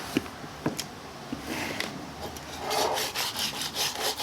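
A stick of butter rubbed back and forth across the bottom of a loaf pan to grease it: a soft scraping rub in uneven strokes, with a couple of light taps in the first second.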